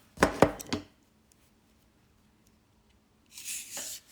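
A few sharp clicks and knocks within the first second as a brass mechanical pencil and a measuring tool are handled, then a short hissing rub about three seconds in.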